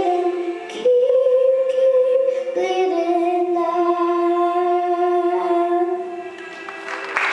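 A young girl singing solo into a handheld microphone. She holds two long drawn-out notes, the second lasting several seconds, and the voice fades out near the end.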